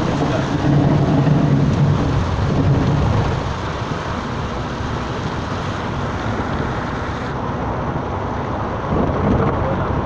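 Steady engine and road noise inside a moving vehicle driving through rain, a little louder for the first three seconds.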